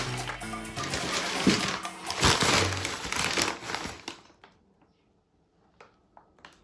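Brown paper bags and packing paper rustling and crinkling as a hand rummages through a cardboard box. The rustling stops about four seconds in, followed by a few faint taps.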